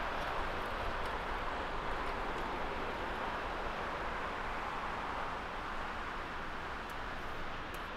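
Jet engine roar from a Boeing 747-400 freighter on the runway: a steady, even rush with a deep rumble underneath, slowly fading as the aircraft moves away.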